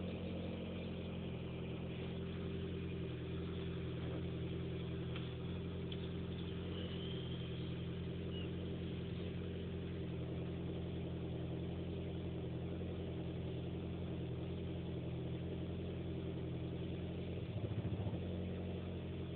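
Seat Ibiza Cupra's engine idling steadily. Near the end it briefly swells louder: the weird noise the owner is asking about at idle.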